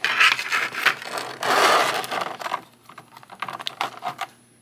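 Rigid clear plastic packaging of an action figure being handled and opened: a quick run of clicks and taps, then about a second of scraping, crinkling plastic, then a few lighter scattered clicks.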